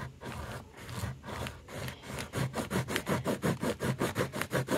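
Pencil scribbling hard back and forth along one line on an index card, the lead rasping against the card at each stroke to score it for tearing. The strokes quicken from about two a second to about six a second a little before halfway.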